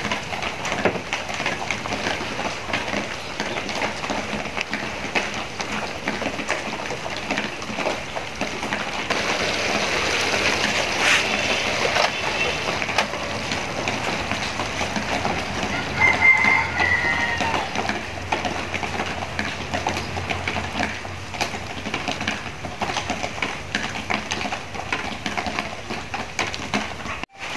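Spicy sauce with chicken pieces boiling in a metal wok, a steady bubbling hiss, stirred now and then with wooden chopsticks. A chicken calls briefly about 16 seconds in.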